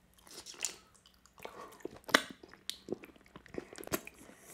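Close-miked eating of a strip of raw salmon: a bite, then wet chewing and mouth smacks with a few sharp clicks, the loudest about two seconds in.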